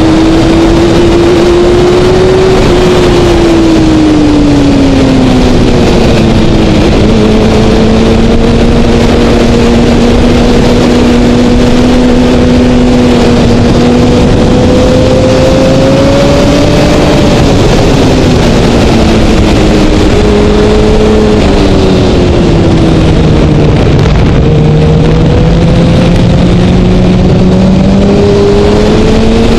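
2012 Kawasaki ZX-6R inline-four sportbike engine at track speed, its note sinking and holding through the corners, dropping lowest about three-quarters of the way in, then climbing again near the end. A loud, steady rush of wind noise runs under it.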